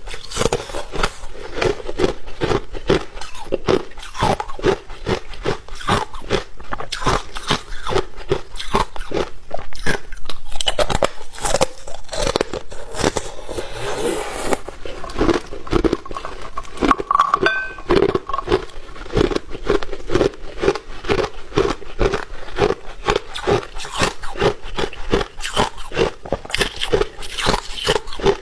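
Ice being bitten and chewed close to the microphone: a steady run of crisp crunches, about two a second.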